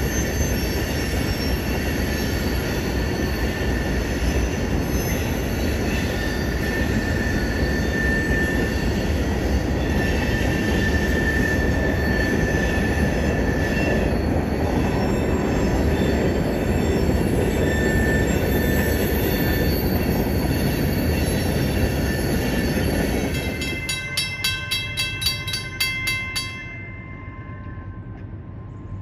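Freight train cars rolling past, with steady wheel noise and thin squealing from the wheels. Near the end the rolling stops with a quick run of clicks from the last wheels, and the sound drops away.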